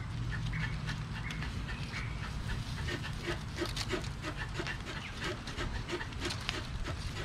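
Green coconut palm leaflets rustling and crackling as they are pulled and tucked into a woven basket, with a rhythmic panting sound about three times a second in the middle.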